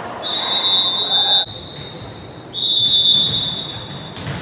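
Volleyball referee's whistle blown twice: two long, steady, high blasts of about a second and a half each, with a short gap between them.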